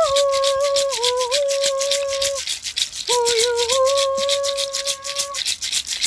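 A hand rattle made of clustered seed-pod shells and a small gourd is shaken in a fast, even rhythm. A woman's voice sings two long held notes over it, the second starting about three seconds in.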